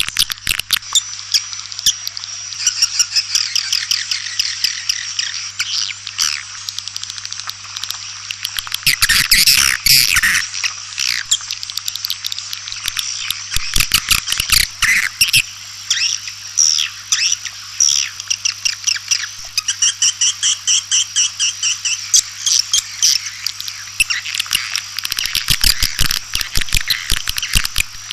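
White-nest swiftlets calling: dense, overlapping twittering chirps and rapid clicking trills, with a low steady hum beneath. This is a swiftlet call recording of the kind played to draw swiftlets to a nesting house.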